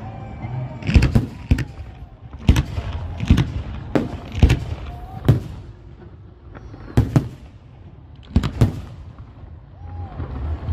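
Aerial firework shells bursting: a run of a dozen or so sharp bangs at irregular intervals, several coming in quick pairs.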